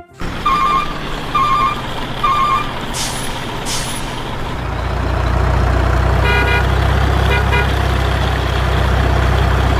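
Heavy truck sounds: a reversing alarm beeps three times, the air brakes hiss twice, then the diesel engine rumbles steadily with two short horn honks.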